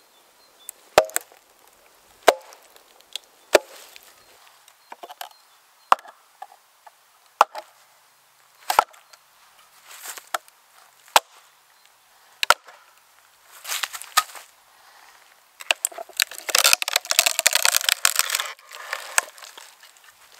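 Wooden maul knocking at a split in an ash log: a string of sharp blows about a second and a half apart. Near the end, a few seconds of crackling and tearing as the ash fibres give way and the split halves are pried apart.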